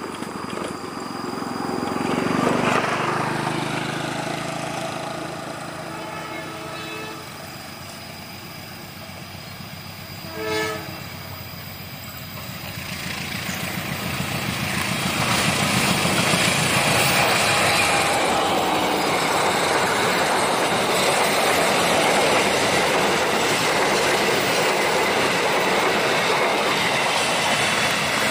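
A passing vehicle swells and fades a couple of seconds in. About ten seconds in a train horn gives one short blast, then the train closes in and rushes past at speed, its wheels and cars making a loud steady clatter through the rest.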